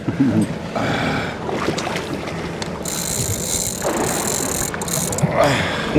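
Wind and water noise on a fishing boat at sea, mixed with the clicking of a fishing reel being cranked. A louder, higher hiss comes in about halfway through.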